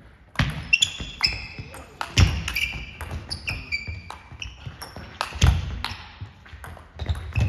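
Table tennis rally: the ball clicking off the rackets and the table in quick exchanges, with shoes squeaking on the sports hall floor and two heavier foot thuds as the players move.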